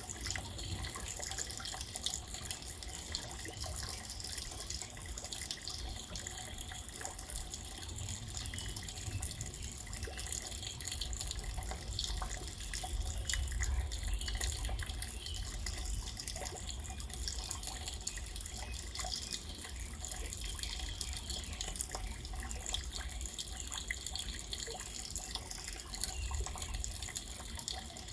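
Steady rain falling, with many small drop ticks over a continuous hiss.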